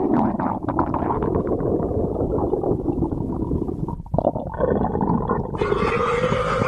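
A person's hungry stomach growling: continuous gurgling and rumbling with many small crackles, dipping briefly about four seconds in.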